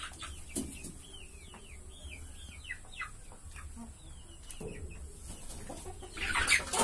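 Chickens in a coop making repeated short, high peeping calls, about two or three a second, which thin out after a few seconds. A louder, harsher burst follows near the end.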